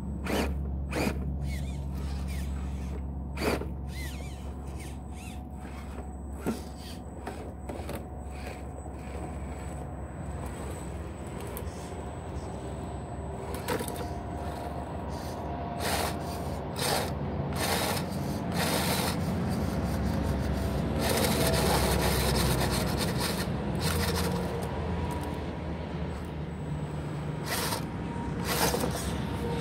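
A Redcat Gen8 1/10-scale electric RC rock crawler works slowly over rocks. Its motor and gears whine, rising and falling in pitch as it climbs. Tyres scrape and grind on the rock, with scattered sharp clicks and knocks.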